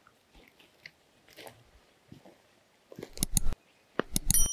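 Two bursts of clattering knocks, about three and four seconds in, the second ending in a short metallic ring that fades.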